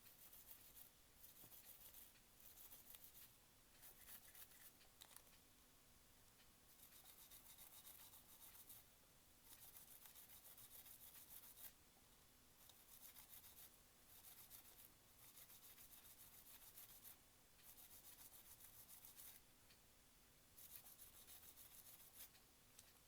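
Faint rubbing strokes, coming in one- to two-second bursts with short pauses, from cleaning a cassette player's tape mechanism.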